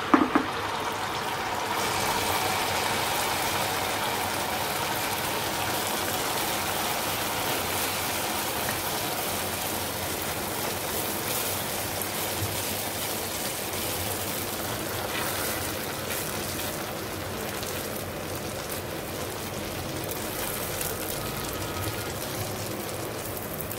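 Wheat-flour malpua batter deep-frying in hot ghee: a steady, dense sizzle of bubbling fat that builds over the first couple of seconds, then holds, easing slightly toward the end.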